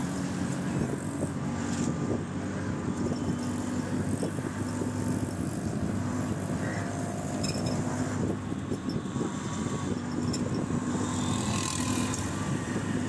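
Motor vehicle engine running steadily with road and traffic noise, heard from inside the moving vehicle, with a low, even hum throughout and a few light rattles.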